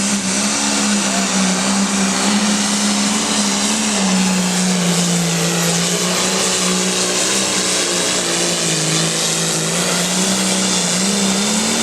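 Hot farm class pulling tractor's diesel engine running flat out under load as it drags the weight sled down the track, with a steady, loud engine note over a heavy rushing hiss. Its pitch sags slightly about four seconds in and wavers up and down toward the end.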